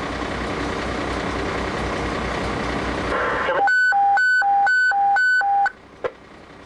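Fire engine running with a steady low throb, then a loud two-pitch hi-lo alert tone over the fire radio, switching between a low and a high note four times over about two seconds. The tone marks an emergency announcement, here the evacuation order for the burning buildings.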